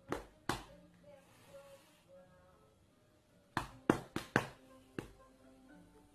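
A series of sharp knocks or taps: two near the start, then four in quick succession about three and a half seconds in and one more a second later, over faint background music.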